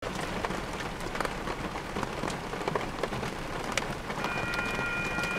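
Pouring rain, with sharp taps of individual drops. About four seconds in, the grade crossing's warning bell starts as the signals activate: a steady chord of high tones.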